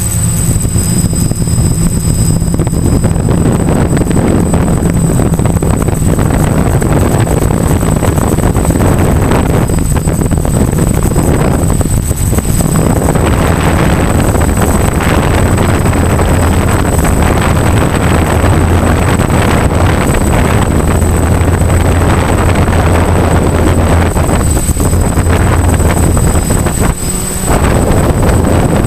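DJI F550 hexacopter's six brushless motors and propellers running steadily, heard from a camera on the frame, with a constant low hum and a thin steady high whine. Air rushes over the microphone throughout.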